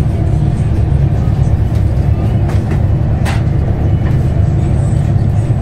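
Steady low rumble of a moving train heard from inside a passenger coach, with a couple of sharp knocks about halfway through.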